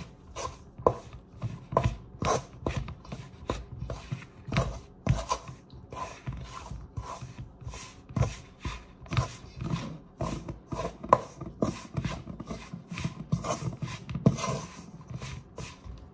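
A spatula scraping and stirring flour and water into dough in a stainless steel mixing bowl, in repeated quick strokes, a few a second.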